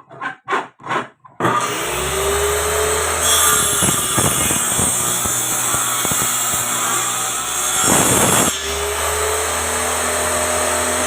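A homemade circular table saw starts up about a second and a half in and runs loudly with a steady hum. The sound turns harsher in the middle, with a loud burst about eight seconds in, as the blade cuts wood.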